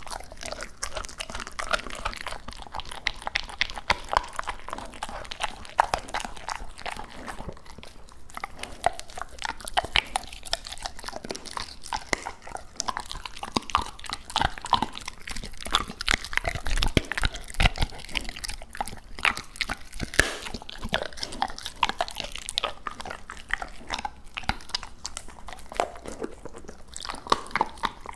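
Labrador retriever chewing raw duck close to the microphone: a dense, unbroken run of wet crunching clicks as it works the meat in its jaws.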